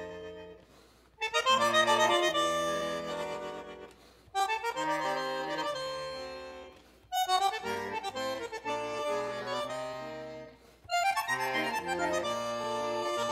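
Instrumental background music, with no singing, played as a melody in phrases about three seconds long. Each phrase starts loud and fades away before the next begins.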